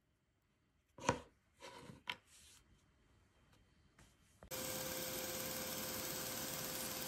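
A few light knocks and rubs as a small resin part is handled and set down on a cutting mat, then, about four and a half seconds in, a bench power tool starts running steadily with a hum as a small part is held against its narrow vertical band.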